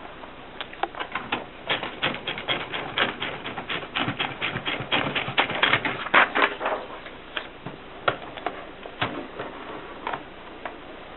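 1960s Mercedes typewriter being typed on: a quick run of key strikes from about half a second in, thinning to scattered single strikes after about seven seconds.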